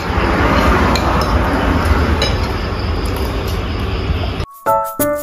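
Steady noisy eatery ambience with a low rumble and a few light clinks of cutlery on plates. About four and a half seconds in it cuts off suddenly and background music starts, a light melody of short plucked notes.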